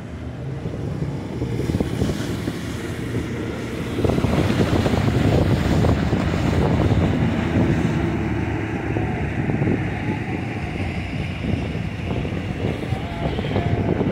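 Outboard motor of a center-console boat running through rough, breaking water, mixed with the rush of surf and wind buffeting the microphone. The sound grows louder about four seconds in.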